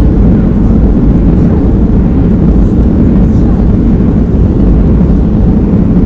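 Cabin noise of a Boeing 737-800 on its landing rollout, heard from a seat over the wing: a loud, steady, low roar of the engines and wheels on the runway as the jet slows with its ground spoilers raised.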